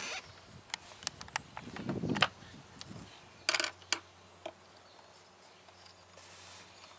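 Small clicks, taps and rubbing from hands handling and twisting bare wire ends together before soldering, with a short low rumble of handling about two seconds in.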